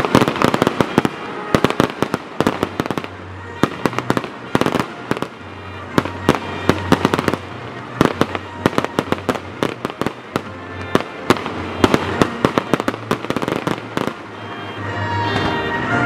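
Fireworks going off in quick succession: a dense run of sharp bangs and crackles, dozens of reports. Music plays underneath and comes up louder near the end as the bangs thin out.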